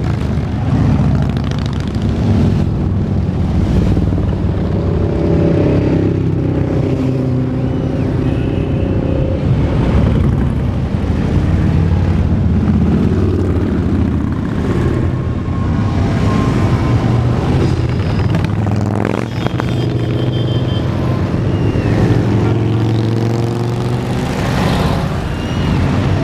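Cruiser motorcycles riding past one after another in a parade, their engines running loudly without a break, the pitch rising and falling as each bike goes by.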